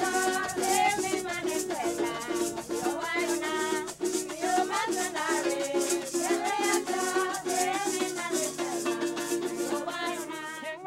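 Background music: a quick, steady shaker rhythm, a repeated low note and a wavering melody over it.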